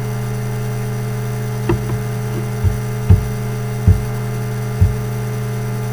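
Steady electrical mains hum on the recording, with a handful of short low thumps scattered through the middle.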